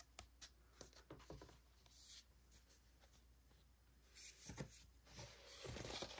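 Faint rustling and light ticks of cardboard LP sleeves being flipped through in a plastic record crate, with a longer sliding rustle near the end as one album is pulled out.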